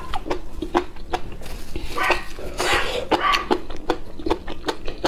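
Close-miked chewing of enoki mushrooms in chili oil: a quick run of wet, sharp mouth clicks, with a louder breathy stretch in the middle.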